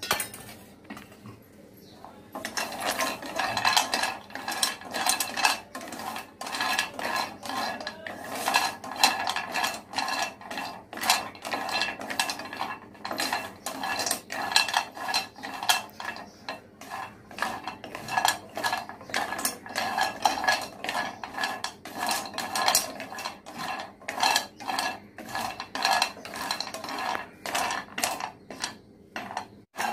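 A wooden spatula stirring and scraping whole dried turmeric roots around a nonstick pan as they roast in a little oil, the hard roots clattering and knocking against the metal. The stirring is a quick, continuous run of strokes starting about two seconds in.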